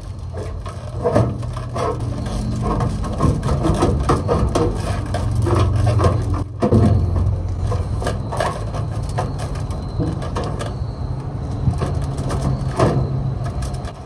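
Sheet-metal top cover of a microwave being worked loose by hand: a run of irregular clicks, knocks and light metallic rattles and scrapes over a steady low hum.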